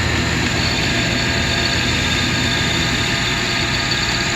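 South Bend No. 9 Model A lathe running with its belt-driven spindle turning and the automatic feed engaged, making a steady whir, while the tool takes a facing cut across the workpiece.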